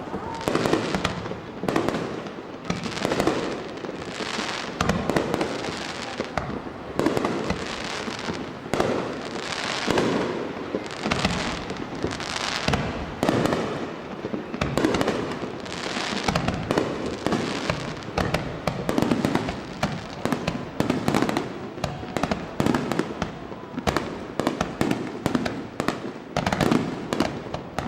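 Aerial fireworks shells bursting one after another in a dense barrage, several bangs a second overlapping without a break.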